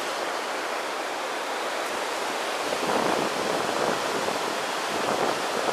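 Water splashing and sloshing as a hooked skygazer fights at the surface beside a concrete bank, heard as a steady rushing noise that swells a little about three seconds in.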